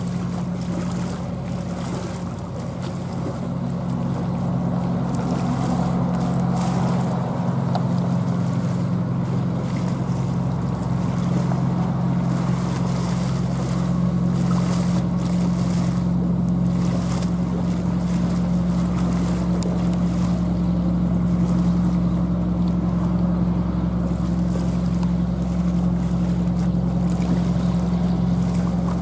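Boat engine droning steadily with an even low hum, getting a little louder a few seconds in and then holding steady.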